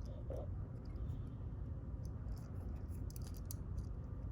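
Light metallic clicks and scraping from tools and fingers working at a disassembled padlock's parts to pry a piece free, a scatter of small ticks over a low steady hum.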